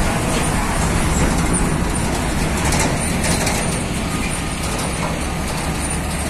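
Nissan Diesel tractor unit's diesel engine running as it pulls an empty flatbed semi-trailer past, with tyre and road noise, easing off a little as it moves away.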